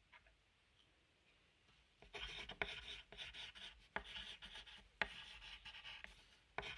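Library objects played as percussion. After about two seconds of near silence come dry, scratchy rubbing strokes like writing or scraping, with a few sharp taps among them.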